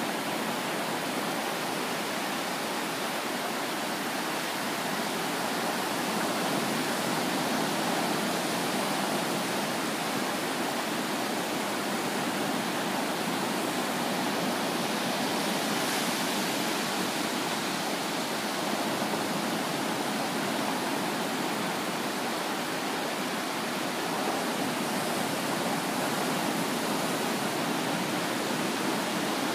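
Ocean surf, small waves breaking and washing up the shore: a steady rushing hiss that swells slightly a few times.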